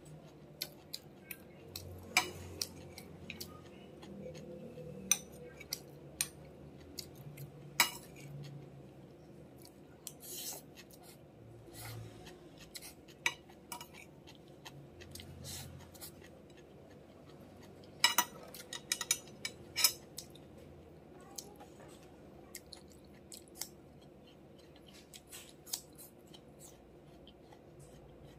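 Metal spoon clinking and scraping against a ceramic plate as rice is scooped, in scattered sharp taps with a quick run of clinks about eighteen seconds in. Soft chewing sounds between the taps.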